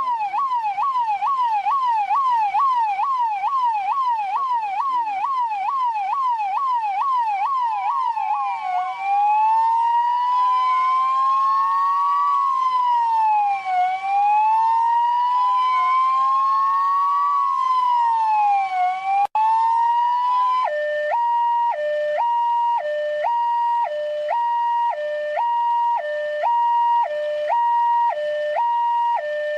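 Russian police siren cycling through its modes. It starts as a fast yelp of about two and a half sweeps a second. About eight seconds in it changes to a slow wail, two tones sweeping up and down past each other. About twenty seconds in, after a brief cutout, it switches to a two-tone hi-lo that alternates roughly once a second.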